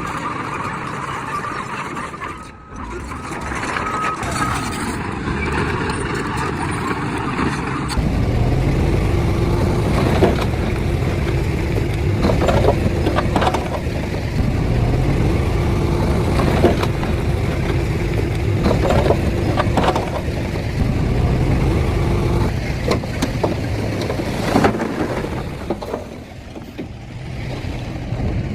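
Heavy diesel earthmoving machinery running under load, with scattered knocks and clanks. The sound changes abruptly about eight seconds in, after which a deeper engine drone with a steady hum takes over.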